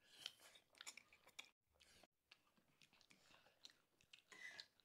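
Faint close-up chewing of black Samyang instant noodles, with small wet mouth clicks and smacks.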